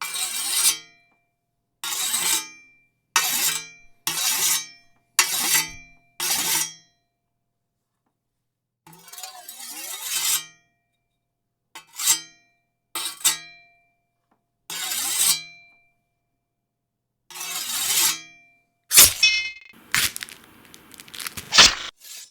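A run of sword sound effects, one after another with short silences between: metal blade strikes and clashes, each with a short metallic ring, about a dozen in all, the last few coming in quick succession.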